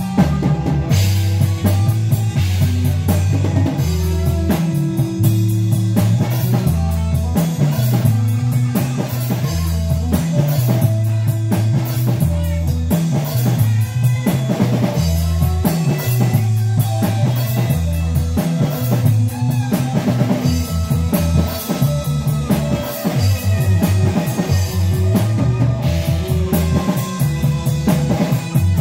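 Live rock band playing: a bass guitar line of changing low notes is the strongest part, over a drum kit keeping a steady beat with kick drum and cymbals, and electric guitar.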